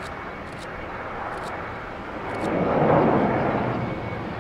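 Bombardier Dash 8 Q400 turboprop rolling along the runway, its engines and propellers giving a steady rush that swells loudest about three seconds in.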